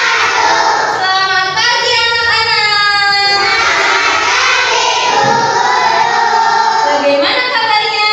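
A class of young schoolchildren singing a song together.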